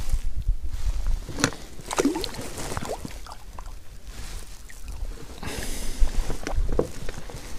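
Handling sounds aboard an inflatable boat: several light knocks and clicks against the boat and tackle, with some rubbing and a brief hiss a little past halfway, as a caught crucian carp is put away and the bait pots are handled.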